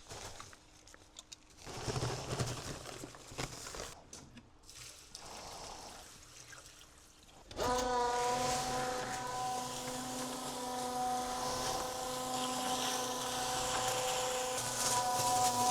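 Water and material being poured and handled. Then, about halfway through, the electric concrete mixer starts up suddenly and runs with a steady hum of several pitched tones over the churn of the drum.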